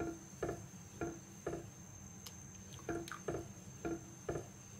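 Wooden spatula scraping and swishing through a thick milk and wheat-flour mixture in a nonstick frying pan, in short strokes about twice a second with a pause of about a second and a half midway. The mixture is stirred without stopping so it does not form lumps. A steady faint high tone runs underneath.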